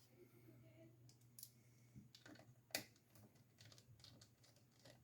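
Faint, scattered clicks and ticks of a small precision screwdriver turning out a tiny screw from a laptop's hard-drive bay, the sharpest click near three seconds in.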